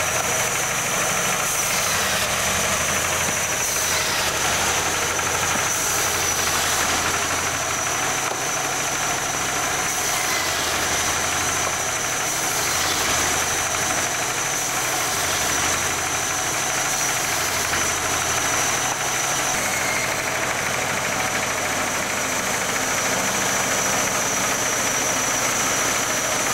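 Firewood band saw running steadily, with a low drone that dips and returns every few seconds.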